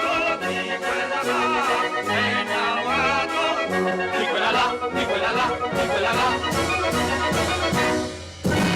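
Instrumental background music with a melody over a bass line and a steady beat.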